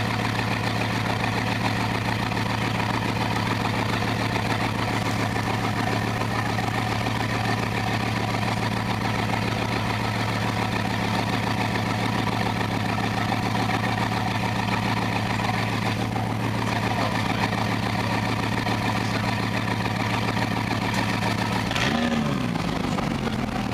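Bugatti Veyron's quad-turbo W16 engine idling with a steady note. Near the end the note shifts briefly.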